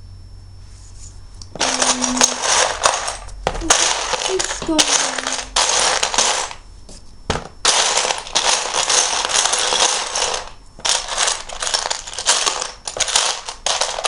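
A hand rummaging through a pile of loose plastic Lego bricks, the pieces clattering and rattling against each other in several long bouts with short pauses between them, while a piece is searched for.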